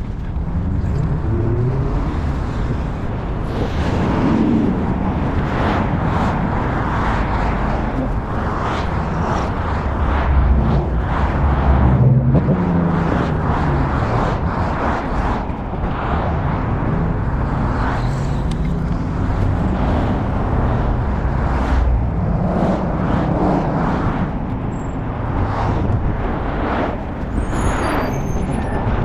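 Continuous outdoor road noise: a steady low rolling rumble with cars passing.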